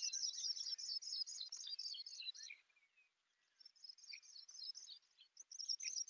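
Recorded song of a Sprague's pipit: a descending cascade of high, clear whistles that start high and step down, given again after short pauses.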